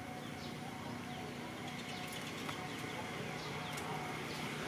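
Outdoor ambience: short, falling bird chirps repeat every half second or so over a steady background hum.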